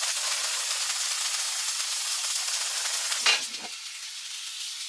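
Water running steadily from a tap while paint-stained jeans are rinsed. It stops with a knock a little over three seconds in, leaving a fainter hiss.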